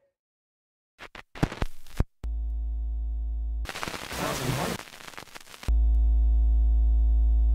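A few sharp clicks, then a steady low electronic buzz that holds for about a second and a half. After a short noisy burst the buzz comes back louder and holds to the end.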